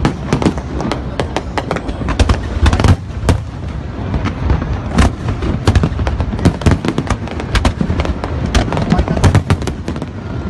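Fireworks display: a dense, irregular run of bangs and crackles over a continuous low rumble, with several sharper, louder reports scattered through it.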